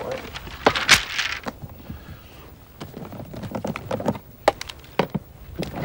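Bamboo canes clattering against each other and a plastic box as a bundle is lifted, loudest about a second in, followed by scattered small clicks and knocks of handling the plastic box and its strap.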